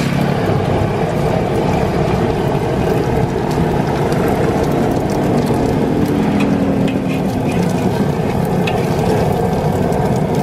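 Beaten egg frying in hot oil in a wok, with a light crackle of sizzling and scattered small ticks. Under it is a loud, steady low roar.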